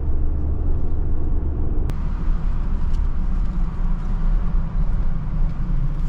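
Engine and road noise heard inside a Ford pickup's cab while driving, a steady low rumble. About two seconds in the sound changes abruptly, from highway driving to slower driving on a city street.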